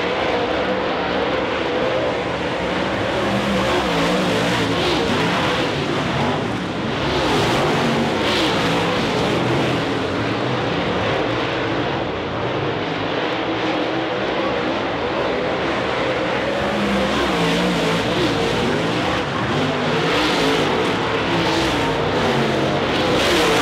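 Several dirt-track stock cars running laps on a dirt oval, their engines blending into one continuous loud drone whose pitch keeps rising and falling as they go around.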